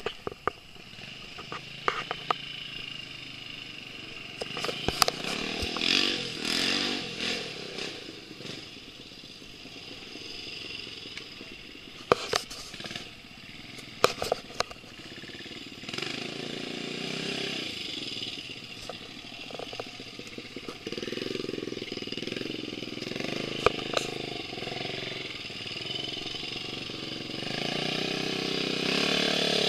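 Off-road dirt bike engine running and revving, its pitch rising and falling, growing louder near the end as the bike comes down the slope. Sharp clicks and knocks come now and then.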